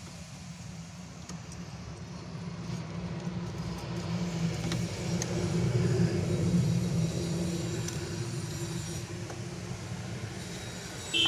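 Motor vehicle engine rumbling as it goes by, growing louder to a peak about six seconds in and then fading away. A few faint clicks of tools or parts being handled.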